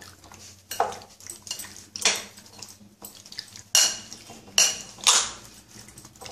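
Metal spoon clinking and scraping against a glass bowl while stirring chicken pieces into a raw-egg marinade, with about five louder knocks at irregular intervals.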